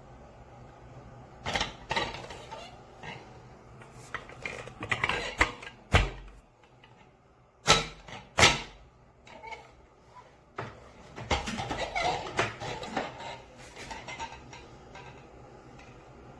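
Plastic diffuser attachment being pushed and worked against a hair dryer's nozzle: irregular clicks, knocks and plastic clatter, with a few sharper knocks in the middle, as it fails to fit. The dryer is not running.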